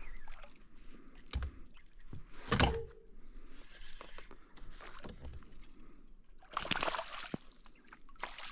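A hooked smallmouth bass splashing and thrashing at the surface beside a kayak, with water sloshing against the hull, a few sharp knocks, the loudest about two and a half seconds in, and a longer splash about seven seconds in.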